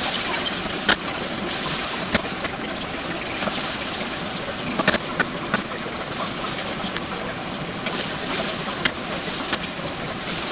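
Sliced onions sizzling in a frying pan while a wooden spatula stirs them, with a handful of sharp clacks of the spatula against the pan.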